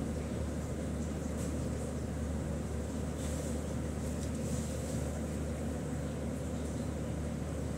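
Steady low hum with a constant background hiss, with faint paper rustling about three to four and a half seconds in.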